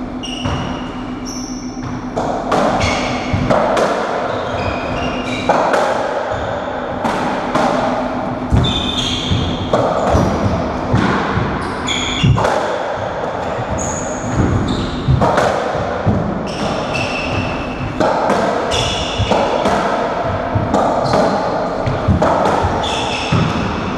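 Racketball rally: the hollow rubber ball is struck by rackets and smacks off the court walls again and again, with short high shoe squeaks on the wooden floor between the hits.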